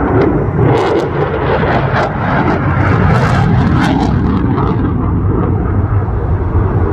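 F-16 fighter jet's engine noise as it flies past: a loud, steady jet rumble with a crackling edge between about one and four seconds in.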